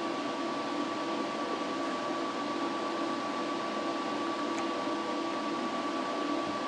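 Steady machine hum with a constant high-pitched whine from a powered-up CNC milling setup standing idle, its cutter not yet cutting.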